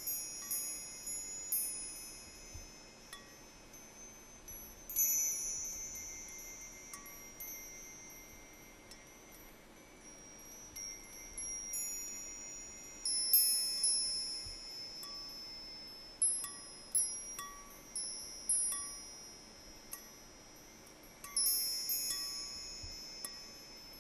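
Chimes ringing in irregular clusters of strikes, high bright tones that fade slowly between clusters.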